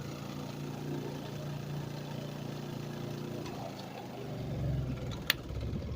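Twin tub washing machine's motor humming steadily, swelling into a louder low rumble near the end, with one sharp click shortly before the end.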